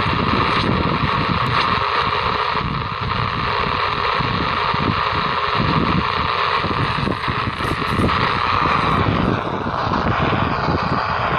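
Emperor P-3203 CB walkie-talkie hissing with steady radio static through its small speaker, a faint gliding whistle appearing near the end.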